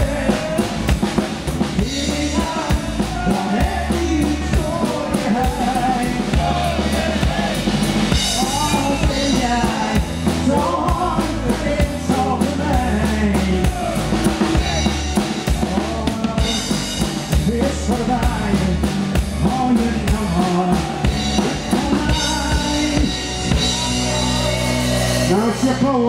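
Live band playing a smartlap-style song: a drum kit keeps a steady beat under bass guitar and acoustic guitar.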